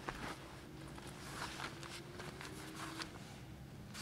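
Soft rustling and a few irregular light ticks from someone moving inside a nylon tent, over a faint tone that slowly rises in pitch.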